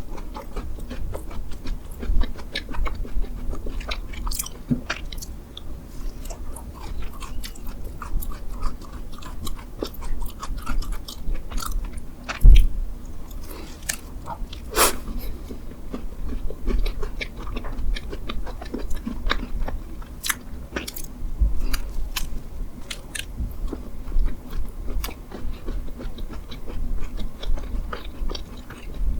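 Close-miked biting and chewing of Korean mammoth bread, a large streusel-topped bread filled with cream, with a steady run of small crunchy clicks and mouth sounds. There is a louder low knock about twelve seconds in.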